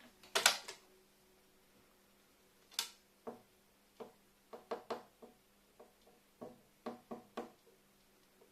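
Short sharp sounds in a small room: a louder one about half a second in and another near three seconds, then a quick run of light taps and clicks, over a faint steady hum.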